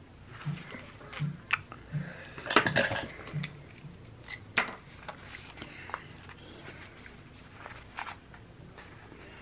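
Paper sticker sheets and planner pages being handled on a desk: scattered light clicks and short rustles, with the loudest crinkle about two and a half seconds in.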